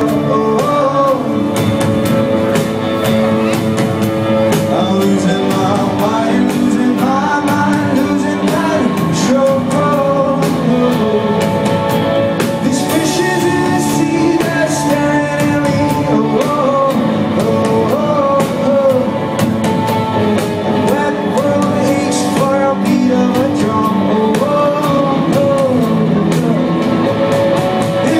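Rock band playing live: a singer over electric guitars, bass and a drum kit, with the song running continuously and loud.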